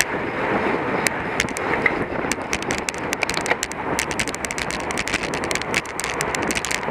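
Wind rushing over the microphone of a camera mounted on a bicycle racing at speed, with road and bike noise and many irregular sharp clicks.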